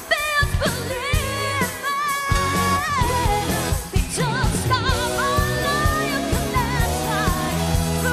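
A woman singing a pop song live into a microphone over an amplified band backing with a steady beat, her held notes wavering in pitch.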